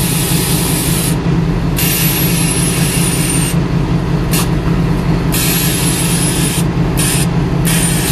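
Air ride suspension bags on a 1951 Chevrolet pickup dumping air: a loud hiss that cuts out and resumes several times as the truck lowers toward the ground. Under it, the pickup's small-block 350 V8 idles steadily.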